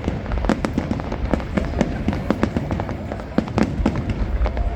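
Fireworks display: a rapid, irregular string of sharp bangs and crackles from bursting shells, several a second, over a low rumble.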